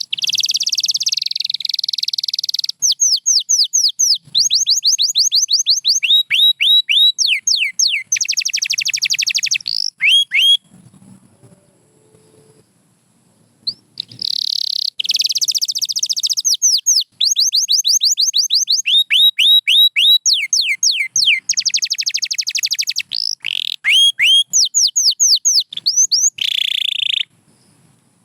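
Canary singing: fast buzzy rolls alternating with runs of quick downward-sliding whistled notes, with a break of about three seconds around the middle.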